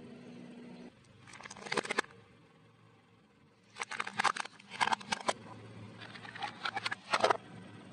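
A car tyre rolling over and crushing things on concrete: a short burst of crackling about a second and a half in, then two longer runs of cracking and snapping plastic as a plastic toy truck is crushed under the tyre.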